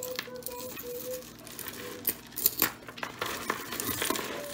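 Metal costume jewelry clinking and rattling as pieces are handled and set down: a scatter of small sharp clicks, the loudest around two and a half seconds in.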